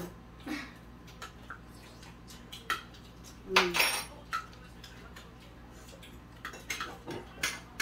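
Forks and spoons clicking and scraping against plates and bowls while people eat, in scattered light clinks. A brief murmur from someone a little past halfway.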